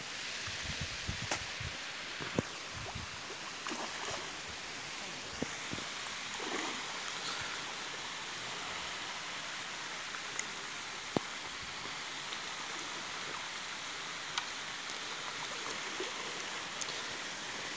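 Steady rushing hiss with a few short, sharp clicks scattered through it.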